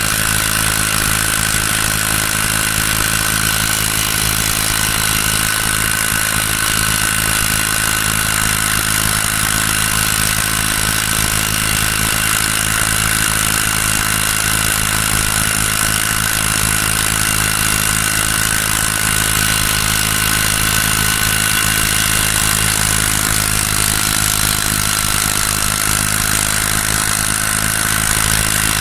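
Small brush-cutter engine rigged as a boat motor, running steadily at constant speed with a high-pitched whine over its drone.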